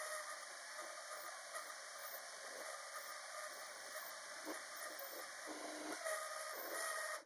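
Variable-speed mini lathe turning down an aluminum bar with an indexable carbide insert, the tool feeding along the bar: a faint steady hiss of the cut with a light whine from the machine and a few small ticks from the chips. The sound cuts off suddenly at the end.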